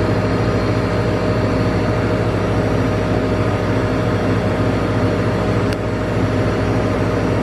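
A large engine or machine running steadily: a loud low drone with several steady hum tones, starting suddenly.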